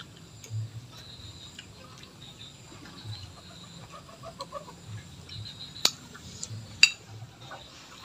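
Close-up mouth sounds of eating fried pigeon by hand: chewing and biting on the meat and small bones, with two sharp crunching clicks about six and seven seconds in.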